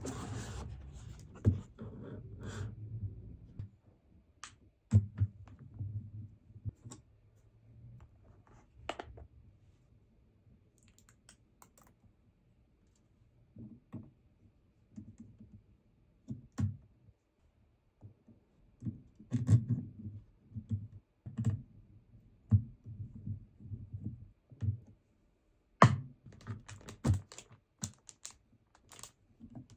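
Scattered small clicks, taps and light knocks of hands handling PC parts, first the case in its packaging and then a mini-ITX motherboard on its anti-static bag. The clicks come in irregular clusters with short quiet gaps between them.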